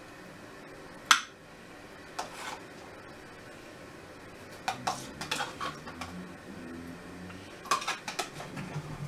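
A metal spoon scraping and tapping against a plastic tub as food is scooped out, in several short separate clatters, the sharpest about a second in.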